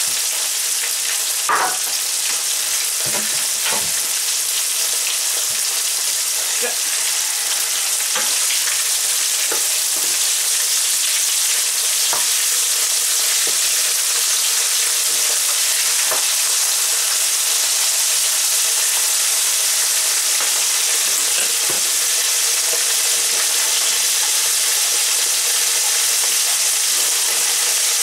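Chicken strips coated in potato starch deep-frying in hot oil in a frying pan: a steady, dense sizzle with scattered pops and crackles. A few louder knocks come in the first few seconds, and a wooden spatula stirs the pieces now and then.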